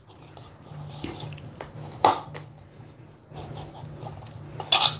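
Hands kneading stiff maida dough in a plate: soft squishing and rubbing of dough against the plate, with a sharper knock about two seconds in and a short hissy rustle near the end, over a low steady hum.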